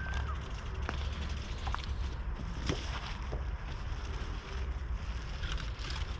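Wind buffeting the microphone, with scattered light snaps and rustles of footsteps pushing through dense undergrowth.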